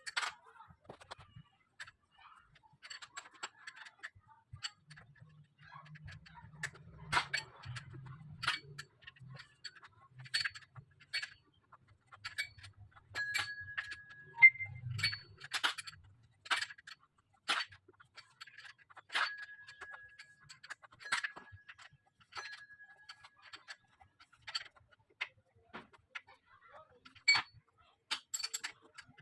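Hand tools clicking and clinking on metal in irregular sharp strokes, about one or two a second, a few of them ringing briefly.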